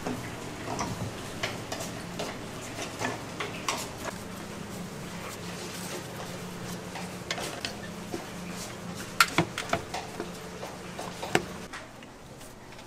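Kitchen clatter: dishes and utensils clinking and knocking irregularly, with the sharpest knocks in the later part. A low steady hum starts about four seconds in and stops near the end.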